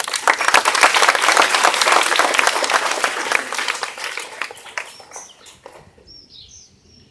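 An audience of schoolchildren and teachers clapping as a speaker is welcomed, loud at first and dying away to scattered claps after about five seconds.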